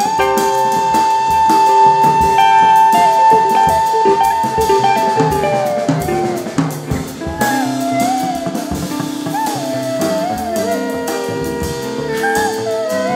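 Jazz band playing with drum kit: a long held high melody note for about five seconds, then a moving melody line over snare and bass drum.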